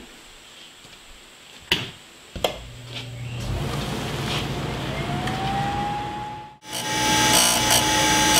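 Cutter grinder switched on with two clicks, its motor spinning up with a rising whine that levels off. Then the grinding wheel runs against the steel parting blade in the vise, a loud grinding sound that swells in short pulses as the blade is worked across the wheel.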